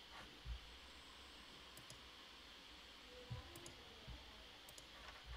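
Near silence with faint computer mouse clicks: a few quick pairs of sharp clicks and some soft low thumps over a light hiss.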